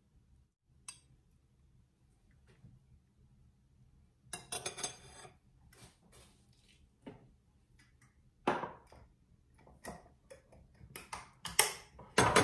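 A metal spoon clinking and tapping against a glass jar and a stainless steel pot: scattered clicks and knocks, a short cluster about four seconds in, and the sharpest clinks near the end.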